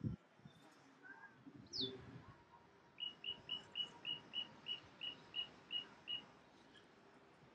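Little ringed plover calling: a single high falling note, then a run of about a dozen short, clipped high notes, about four a second, lasting some three seconds. A low thump at the very start.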